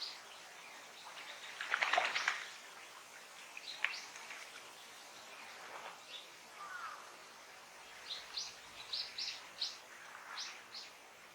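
Wild songbirds calling: a loud harsh call about two seconds in, then scattered short high chirps, and a quick run of them near the end.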